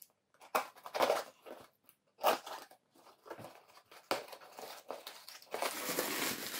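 Small cardboard box being opened by hand: its packing tape is slit with a knife and the flaps are pulled apart in a series of short scratchy crackles. Near the end comes a steadier crinkling of bubble wrap.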